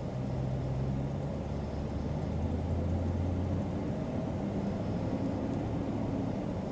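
Steady low rumble of a running motor vehicle, with a low engine hum that shifts slightly in pitch.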